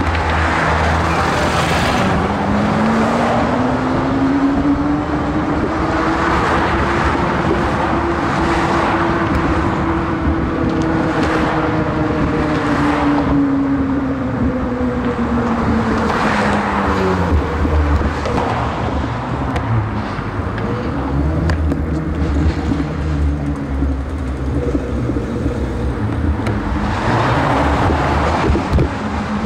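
Road traffic on the bridge roadway beside the sidewalk, with cars passing close by every few seconds over a steady low rumble. Under it runs a pitched hum that slowly rises and then falls back.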